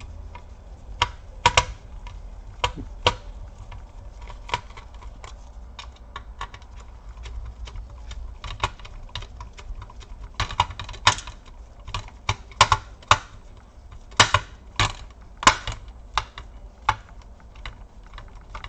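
Small, irregular clicks and taps of a precision screwdriver and gloved fingers on a laptop motherboard's screws and metal chassis as the board's screws are taken out. The clicks are sparse at first and come thicker in the second half.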